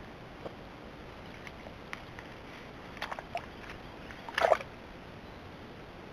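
White-tailed deer feeding on algae at the water's surface: scattered wet clicks and slurping sounds of its mouth in the water, with a louder burst about four and a half seconds in, over a steady hiss.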